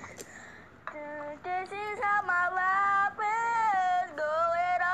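A high-pitched voice singing a slow melody of long, held notes, starting about a second in.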